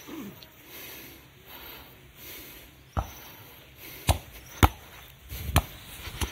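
A series of sharp knocks, five of them at irregular intervals over the second half.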